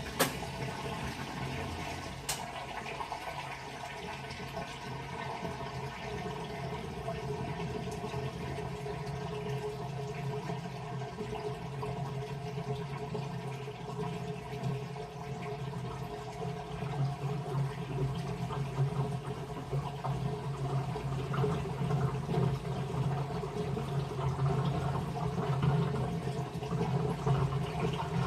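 Washing machine running, water sloshing and swirling in the tub over a steady motor hum, getting somewhat louder about two-thirds of the way in.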